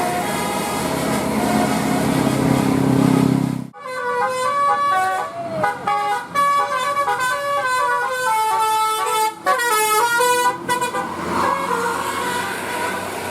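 Bus 'telolet' musical air horn playing a tune of quick stepping notes. For the first few seconds it sounds over the bus engine running; about four seconds in the sound cuts off abruptly and the horn melody carries on cleaner, without the engine, until near the end, when the engine rumble and hiss return.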